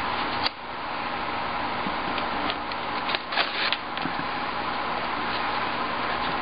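Hands working strips of blue painter's tape against the glass and lead frame of a display case: a sharp click about half a second in, then a few short crackles and rustles of the tape around three seconds in, over a steady fan-like hiss.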